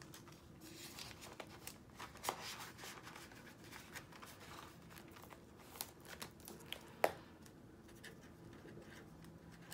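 Faint handling sounds of paper bills and clear plastic zipper pouches in a ring binder: soft rustling and crinkling with scattered light taps and clicks, the sharpest click about seven seconds in.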